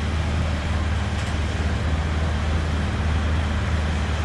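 A motor vehicle's engine idling steadily close by, a constant low hum with street noise around it.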